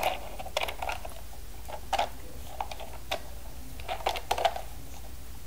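Scattered light clicks and taps from a plastic Imaginext Bikini Bottom Bus toy being handled and its moving parts worked, with a small cluster of clicks about four seconds in.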